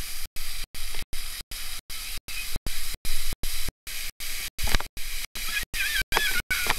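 Splash-pad water jets spraying and splashing down, a steady hiss of falling water, with a sharper splash about two-thirds of the way in and a child's high squealing near the end. The recording cuts in and out a few times a second.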